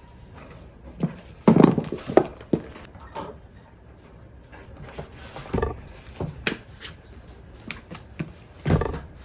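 Irregular knocks and clatter of tableware and other objects being picked up and set down on a wooden desk while it is cleared. The loudest cluster comes about a second and a half in, with another knock near the end.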